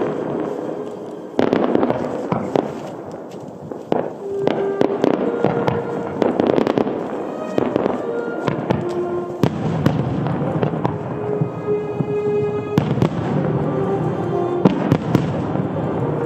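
Starmine fireworks display: many aerial shells bursting in quick succession, with a louder cluster about a second and a half in, over music played for the show.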